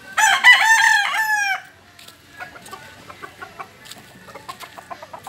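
A rooster crows once, loudly, for about a second and a half, the call falling away at the end. Softer short clucking notes follow, several a second.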